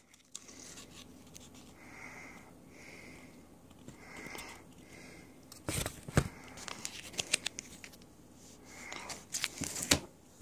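Hands working a mailed card out of its packaging: faint crinkling and handling, with a few soft whistling tones in the first half and sharper clicks and taps from about the middle on.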